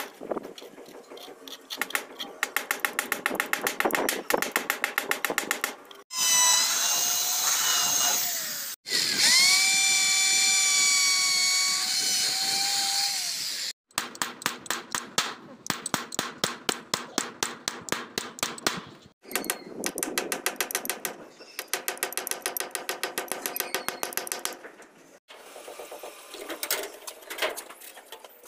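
A hammer tapping rapidly and evenly on sheet-metal roof flashing. A power drill runs twice in between, for about three seconds and then about five seconds; its pitch rises as it spins up and holds steady, and it is louder than the tapping. The tapping resumes after the second run.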